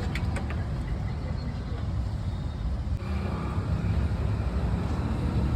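Steady low rumble of a motor vehicle, with a few light clicks just after the start.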